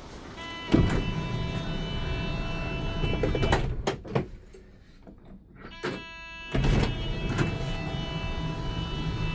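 Power sliding door on a Hyundai Solati van running on its electric motor with a steady warning tone. It ends in a couple of knocks as it latches about three and a half seconds in, then starts moving again about six seconds in.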